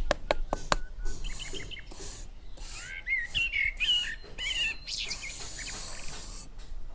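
A quick run of light taps in the first second, then small birds chirping for several seconds, with bursts of scraping, hissing noise, the longest near the end.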